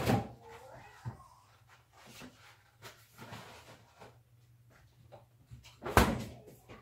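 Two loud knocks about six seconds apart, like a cupboard door being shut, with smaller clicks and knocks between them.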